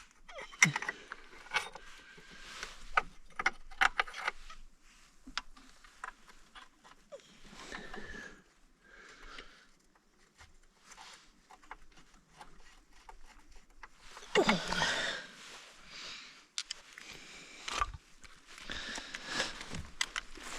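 Metal tools and parts clinking, clicking and scraping as they are handled during disassembly: a quick run of sharp clinks at the start, then scattered scrapes and a couple of longer, louder rattling stretches.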